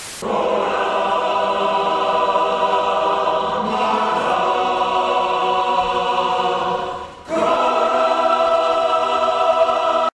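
A choir singing long, held chords, breaking off briefly about seven seconds in and then coming back in.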